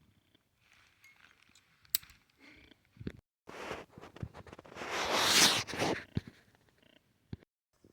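Handling noise from a folding multi-tool and its holster: a few sharp clicks and a longer rustle in the middle, loudest about five seconds in.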